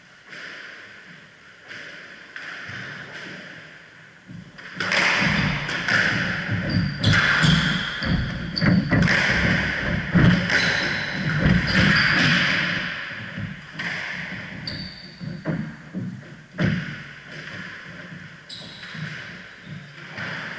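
A squash rally: the ball smacking off racquets and the court walls over and over, mixed with short high squeaks of the players' shoes on the wooden floor, from about five seconds in until about sixteen seconds in. Before and after it, only a few scattered knocks.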